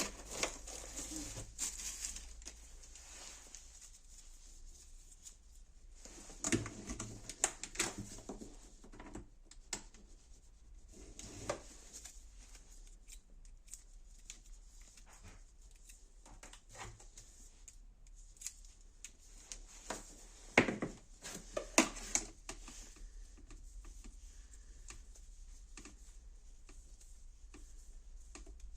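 Nail drill bit filing gel polish off artificial nail tips: intermittent scratchy scraping in short bouts with sharp clicks, loudest about twenty seconds in, over a low steady hum.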